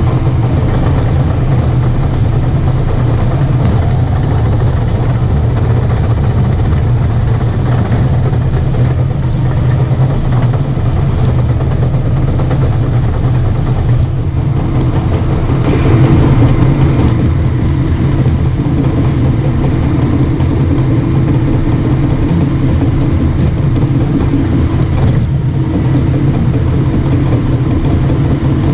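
Caterpillar D5 bulldozer's diesel engine running steadily as the machine works, briefly a little louder just past halfway.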